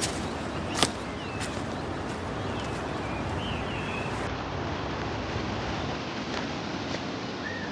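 Outdoor wilderness ambience: a steady hiss of wind-like noise with a few short high chirps, and a single sharp snap just under a second in.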